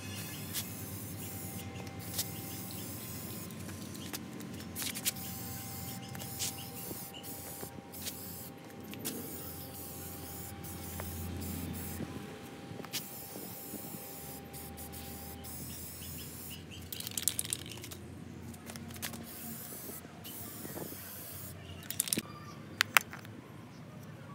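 Aerosol spray-paint can hissing in short bursts with pauses between them. A few sharp clicks come near the end.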